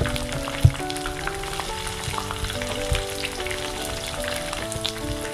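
Battered okra and curry leaves deep-frying in hot oil in a pan, with a steady crackling sizzle. A slotted spoon stirs them, and there is a sharp knock a little under a second in and a smaller one about three seconds in.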